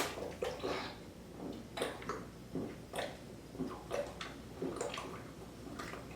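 A person chugging ginger ale, swallowing in quick regular gulps about every half second, with small wet liquid sounds.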